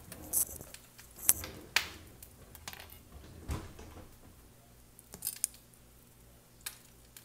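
Kitchen handling clatter: a scattered series of sharp clicks and light knocks, with one duller thump about three and a half seconds in.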